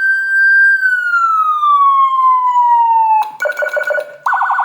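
Electronic siren module with Whelen-style tones. One siren tone holds high, then slowly winds down in pitch. About three seconds in it switches to a choppy two-pitch pattern, and near the end to a rapid up-and-down warble.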